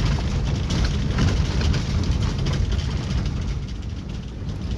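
Van driving over a rough, bumpy gravel road, heard from inside the cabin: a heavy low rumble of engine and road noise with frequent rattles and jolts. It is a little quieter near the end.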